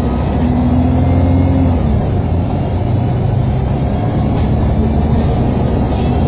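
MAN 18.220LF single-decker bus running on the road, heard from inside the passenger saloon: a steady low diesel engine hum over road noise. Its engine note climbs during the first couple of seconds, then drops back.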